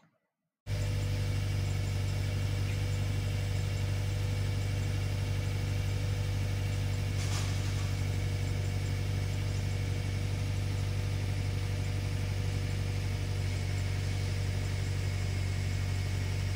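A machine running with a steady, unchanging low hum, starting abruptly just under a second in.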